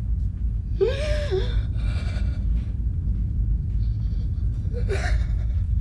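A man gasping and whimpering in acute distress, with a strained cry about a second in and another short one near the end, over a steady low rumble.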